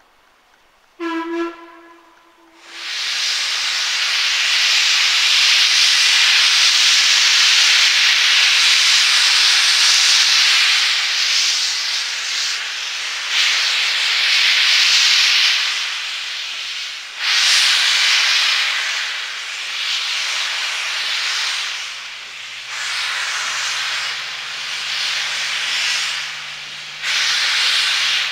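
LMS Princess Royal class Pacific 6201 Princess Elizabeth gives a short whistle about a second in, then starts away with its cylinder drain cocks open: a loud, steady hiss of steam that swells and eases in waves. A low steady hum joins near the end.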